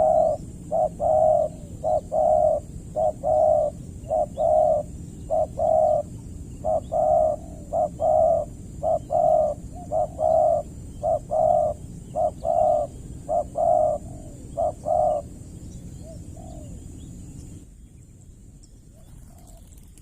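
Spotted dove cooing: a long, fast run of short, low coos, about two a second, that stops about fifteen seconds in. This is the dove's calling song, used to provoke a rival. A steady faint high hiss runs underneath.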